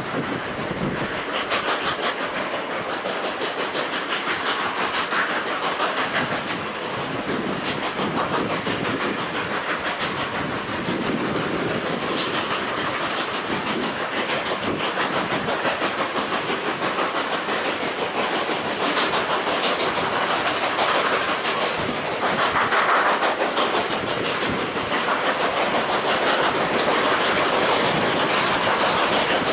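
Narrow-gauge steam train climbing a grade with a mid-train helper locomotive: a steady, dense din of steam locomotives working and car wheels on the rails, slightly louder in the second half.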